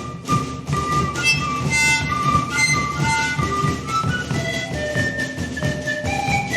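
Siku (zampoña) panpipe ensemble playing a melody in breathy held notes, with a steady low beat underneath.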